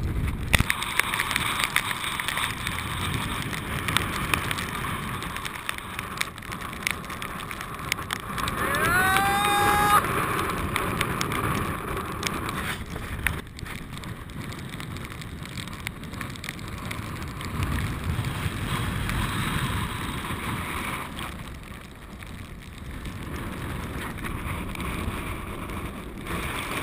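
Wind buffeting a kitesurfing action camera's microphone over choppy water, a steady rushing noise that swells and eases. About nine seconds in, a short rising whine lasts a second or so.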